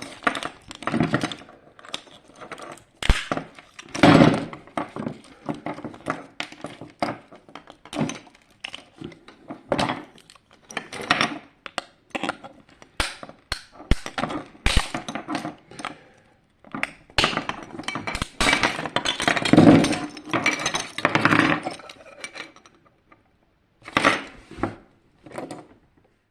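Small plastic and metal parts of a projection alarm clock being handled on a work surface: irregular clicks, clinks and knocks, with a denser stretch of scraping and rattling past the middle and two last knocks near the end.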